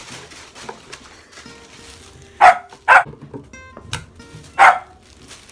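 A corgi barking three times: two short barks about half a second apart, then a third under two seconds later, over faint background music.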